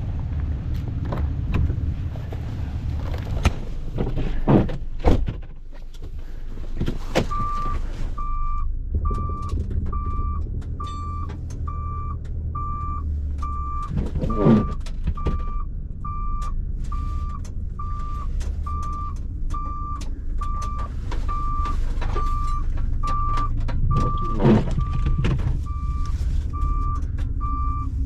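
Truck engine running with a few sharp knocks, then about seven seconds in a reversing alarm starts beeping steadily, about three beeps every two seconds, as the truck backs up.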